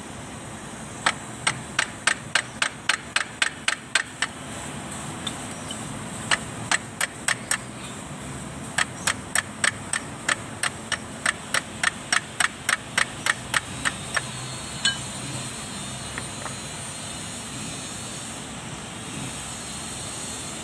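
Hand tool working on a tractor's propeller shaft: runs of sharp metallic clicks, about four a second, in three bursts. The first burst comes about a second in, a short one follows, and a longer one runs through the middle. A steady low background noise lies underneath.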